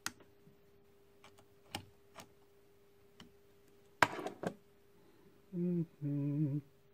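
Scattered small clicks and knocks of plastic parts being handled as a 3D-printed fan nozzle and fan are fitted to a printer's hot end, with a sharper clatter about four seconds in, over a faint steady hum. Near the end a man hums a two-part "mm-hmm".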